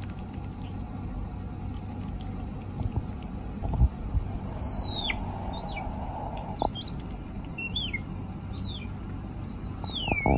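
Pet otter giving a series of high-pitched squeaks that each fall in pitch, about seven of them starting about halfway through, the last one longer. A single thump comes a little before the squeaks.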